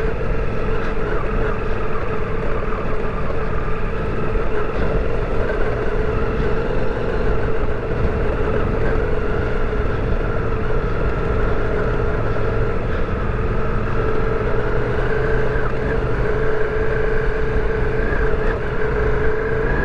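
Ducati Multistrada V4 Rally's V4 engine running with a steady note at low trail speed, over a continuous low rumble.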